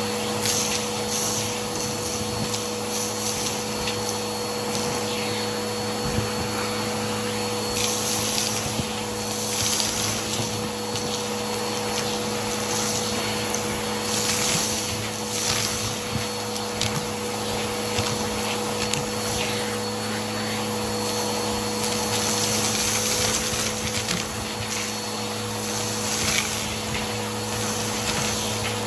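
Vacuum cleaner running with a dusting brush attachment, its motor humming steadily under a rushing of suction air. The hiss surges again and again as the brush is stroked over surfaces.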